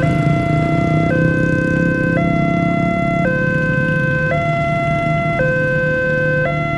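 Railway level-crossing warning alarm from the horn loudspeaker on the signal post: a loud electronic two-tone signal alternating between a high and a low note about once a second, sounding as the crossing closes for an approaching train.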